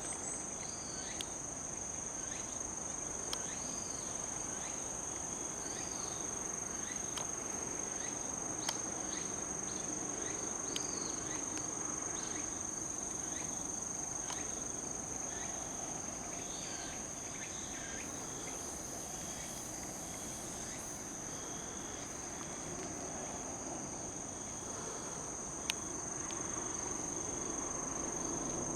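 Insects singing a steady, high-pitched drone, with faint short chirps and a few sharp clicks over it.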